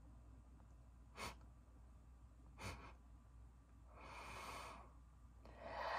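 Near silence broken by two faint short clicks, then a woman's breaths near the end, the second one louder, as if drawing in air before speaking.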